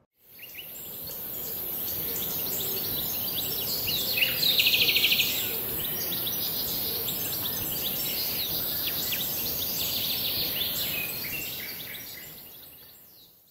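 Birds chirping and calling over a steady high hiss, with a fast, loud trill about four to five seconds in. It fades in at the start and fades out near the end.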